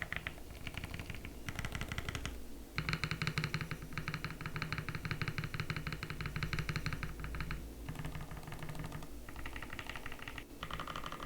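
Typing on a Time80 Reforged mechanical keyboard with lubed Gateron Black Ink v2 linear switches, PBT keycaps and an aluminium plate: fast runs of keystrokes broken by short pauses, the longest run lasting from about three to seven and a half seconds in.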